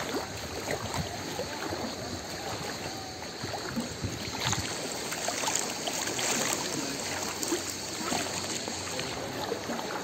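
Seawater sloshing and splashing close by, a steady wash dotted with many small splashes and clicks.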